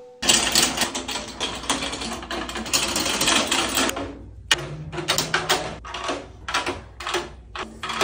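Drum keys turning the tension rods of a brass snare drum, a fast run of metallic clicking and rattling. About halfway through it gives way to fingertip taps on the Evans Heavyweight batter head near each rod, short knocks with a brief pitched ring about twice a second, checking the pitch at each rod as the head is tensioned.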